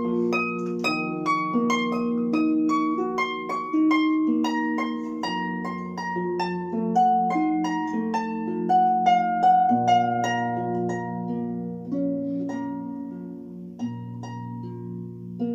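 Instrumental music: a flowing melody of plucked, harp-like notes over long held low notes. The notes become sparser and quieter in the last few seconds.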